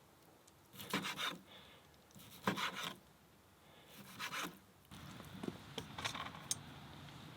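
A utensil scraping food out of a pan, three long scrapes, followed by a few light clicks.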